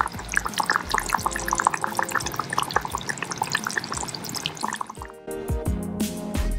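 Thick coconut curry bubbling in an earthenware clay pot, a quick, irregular run of small pops and blips. About five seconds in, background music takes over.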